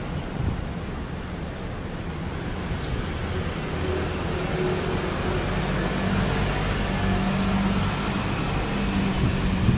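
Taiwan Railways electric train approaching along the tracks: a low rumble that grows slowly louder, with a steady motor hum coming in about halfway through.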